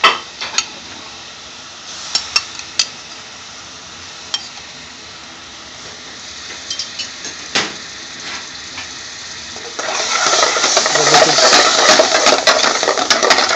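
Chicken pieces going into a pan of sizzling curry sauce, with a few sharp clinks of the bowl and spoon against the pan. About ten seconds in, a metal spoon starts stirring and scraping fast around the aluminium pan, a loud, rapid clatter over the sizzle.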